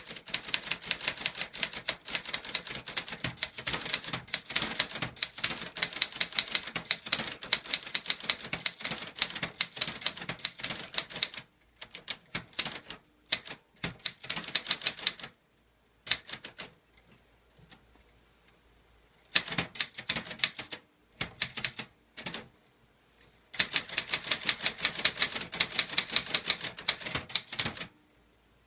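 Clover Top Star 10S Korean typewriter being typed without an ink ribbon: runs of rapid keystroke clacks, with a stretch of scattered strokes and a pause in the middle before a second fast run near the end.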